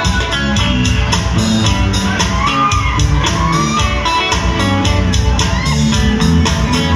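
Live band playing an instrumental passage on electric guitar, bass guitar and drum kit, with a steady drum beat, amplified through PA speakers in a large hall. Audience shouts over the music.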